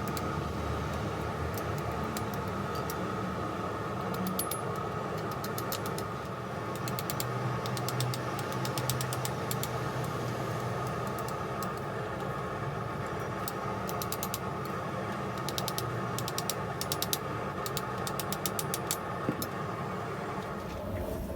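A steady mechanical hum, with scattered light ticks and clicks from about seven seconds in.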